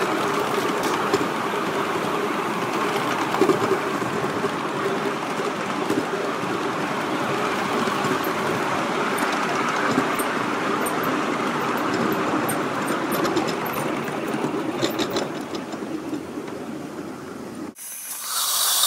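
5-inch gauge live-steam model of a Dholpur locomotive running along the track: a steady rumbling rush of wheels and motion with scattered light clicks. Near the end the running sound drops away suddenly and a short, loud hiss of steam follows.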